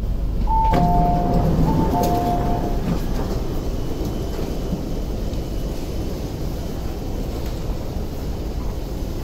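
Steady rumble of an MTR metro train and station platform. Near the start, a two-tone electronic chime sounds twice, a higher note followed by a lower one.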